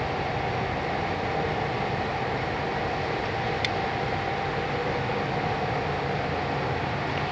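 Hardinge HLV-H toolroom lathe running steadily: a constant hum with a faint steady whine, and one sharp click about halfway through.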